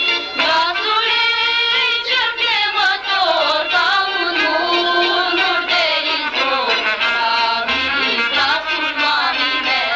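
A folk song sung with instrumental accompaniment; the melody line glides between notes and wavers with vibrato.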